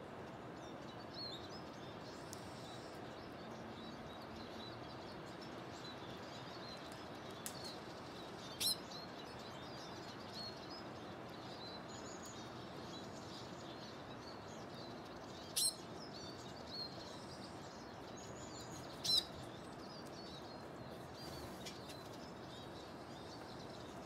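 Small songbirds chirping faintly now and then over steady outdoor background noise. Three short, sharp calls stand out, about a third of the way in, past the middle, and again a few seconds later.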